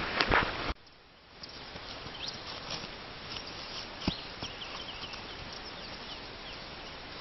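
Steady outdoor background noise with faint, scattered high chirps. It opens with a few louder knocks that cut off abruptly under a second in, and one sharp knock comes about four seconds in.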